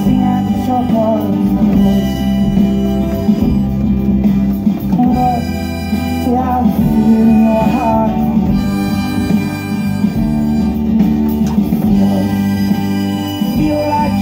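Harmonica played over recorded backing music with guitar, held notes with short bent slides now and then.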